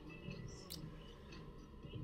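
Faint road and tyre noise in the cabin of a Tesla Model 3, a steady low rumble, with a few light ticks and clicks and one sharper click about a third of the way in.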